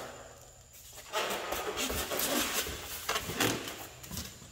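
Styrofoam packing and the cardboard box being handled and shifted, a dense scraping, rustling noise with small knocks that starts about a second in and eases off near the end.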